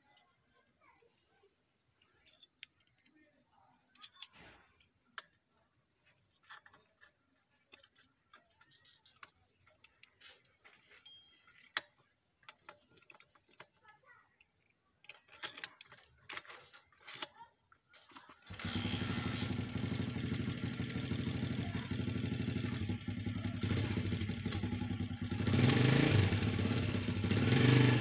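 Scattered clicks and taps of metal hand tools over a faint, steady high hiss; about two-thirds of the way in, a motorcycle engine comes in abruptly and runs loudly, getting louder near the end.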